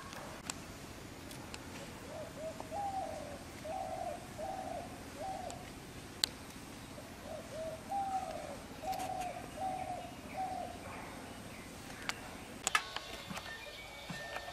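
A bird calling in two runs of repeated low cooing notes, four or five notes in each run. A few sharp clicks come near the end.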